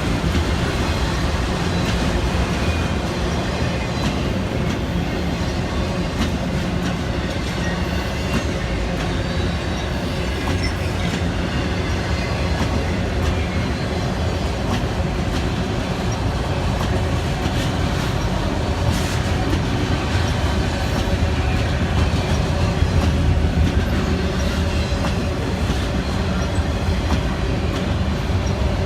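Autorack freight train rolling slowly past, a steady rumble with the wheels clicking over the rail joints.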